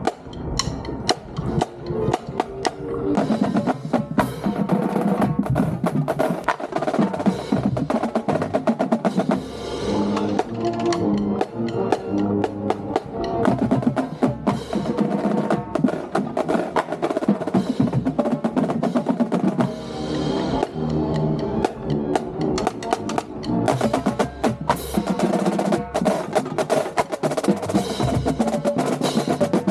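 Marching band playing, with snare drums rattling out fast strokes and rolls and bass drums hitting under the band's melody.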